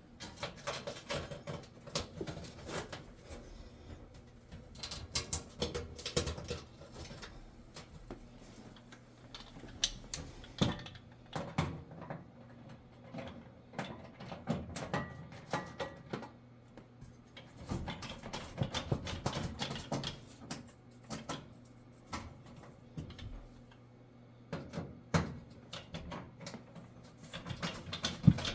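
Irregular small clicks, taps and scrapes of screws and sheet-metal oven parts being handled and fitted by hand, over a low steady hum.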